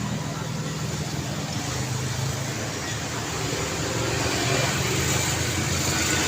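Busy street traffic: cars and motorbikes running past in a continuous wash of engine and tyre noise, growing a little louder near the end.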